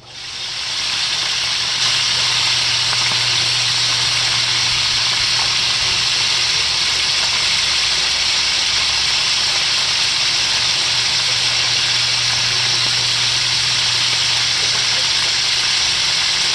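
Whole fish frying in hot oil in a pan, a loud, steady sizzle that comes up within about a second and holds, with a steady low hum beneath.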